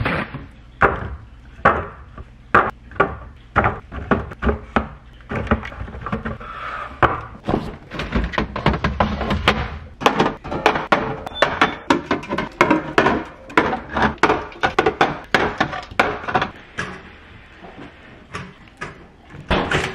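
Kitchen handling noise: a string of sharp, irregular knocks and thunks as a clear plastic bin, drink cans and other items are set down and moved on the counter and in the fridge. Near the end, bread is dropped into a toaster.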